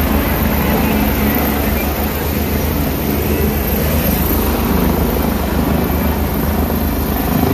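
Helicopter hovering close overhead: its rotor and turbine make a steady, loud noise throughout.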